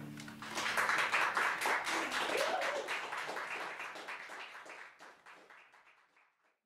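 A held electric guitar tone stops, then an audience claps and applauds, fading away over the last few seconds.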